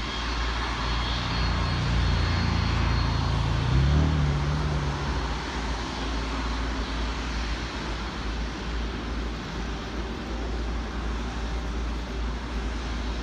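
Engines of a Boeing 777-200ER, its two Rolls-Royce Trent 800 turbofans, running at taxi power as the airliner rolls past. The jet rush is steady and is loudest two to four seconds in.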